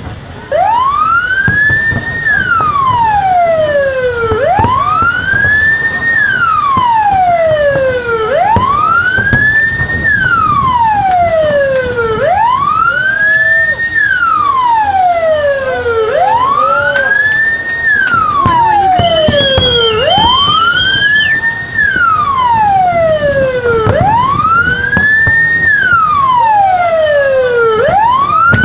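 A siren wailing in a slow, even cycle, rising for about two seconds and falling for about two, about seven times over, with a brief higher steady tone near the middle.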